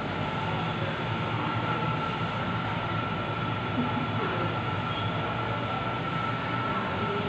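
A steady mechanical hum and rumble with a faint, constant high whine in it, unchanging throughout.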